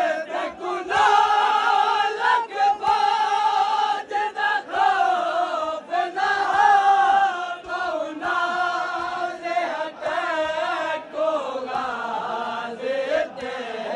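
Men chanting a Muharram mourning lament (matmi bain) in unison, the melody rising and falling in phrases of a second or two with short breaks between them.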